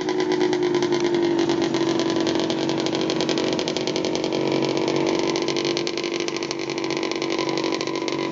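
Single-cylinder snowmobile engines running steadily with a rapid, even firing beat.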